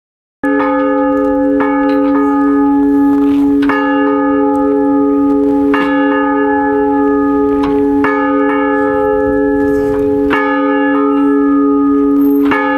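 Restored early-1900s town bell swung by its rope, the clapper striking about every two seconds, with a few lighter extra strikes between, each stroke ringing on in a long sustained tone of several pitches. The ringing starts suddenly a moment in, out of silence.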